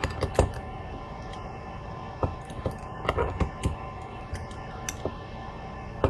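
Irregular small clicks and taps of a screwdriver and loose parts being handled on a limit switch's terminal screws as a cable is wired in.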